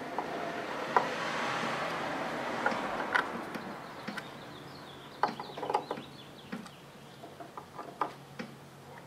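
Light metal clicks and ticks of a hand screwdriver turning the screws that hold a control board in a Tesla large drive unit's inverter housing. A broad rushing noise swells and fades over the first four seconds.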